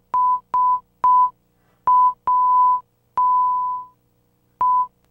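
Censor bleeps: one steady beep tone, cut in seven times in quick succession, each bleep starting with a click and lasting from about a quarter second to nearly a second, with silence in between. They cover swear words.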